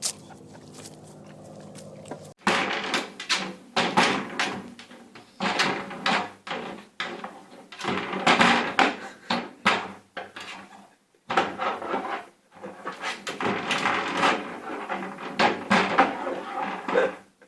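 A large wooden stick repeatedly knocking and scraping against the edges of a narrow gap as a dog struggles to pull it through. A low steady hum runs before the knocking starts, about two seconds in.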